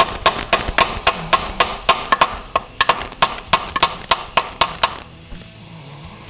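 Rapid, sharp metal tapping, about four strikes a second, on a Ford 5R110W transmission speed sensor that is stuck in the case by its corroded O-ring, working it loose. The tapping stops about five seconds in.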